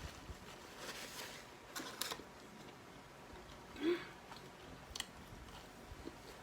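Close-up eating sounds of a person chewing and biting chicken wings: scattered soft crunches and wet clicks, with a brief louder squeak-like sound about four seconds in.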